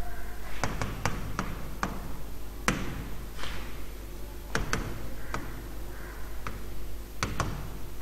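A stylus tapping and clicking against a pen tablet or touchscreen while words are handwritten: about a dozen sharp, irregular taps, with a steady low electrical hum underneath.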